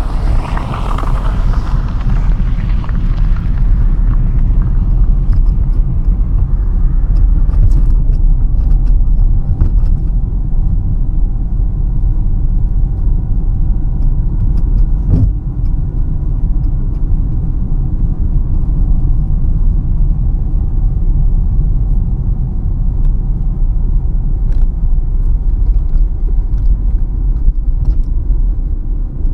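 Steady low rumble of a car driving on a country road, heard from inside the cabin: engine and tyre noise. A brighter rushing hiss fades out over the first few seconds, and faint light ticks come here and there.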